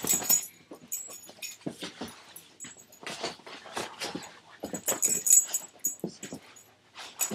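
English springer spaniel making short, irregular excited vocal sounds during rough play with a person, mixed with scuffling.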